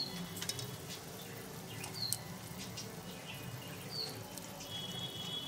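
Thin gravy boiling in a kadhai, with soft bubbling and scattered light clicks, while fried arbi-leaf pakoras are dropped into it. A short high chirp repeats about every two seconds over a low steady hum.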